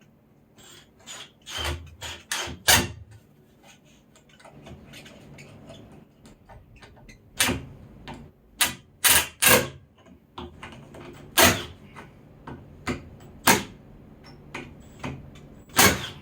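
Irregular wooden knocks and clacks from boards and tools being handled and set together while assembling a wooden frame, some sharp and loud, bunched in two clusters.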